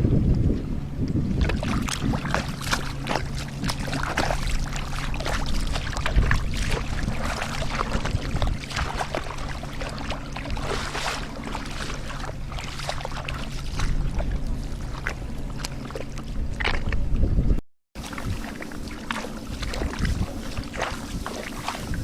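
Water splashing and sloshing in irregular strokes, as from hands working through shallow water, with wind rumble on the microphone. A steady low hum runs under it and stops near the end.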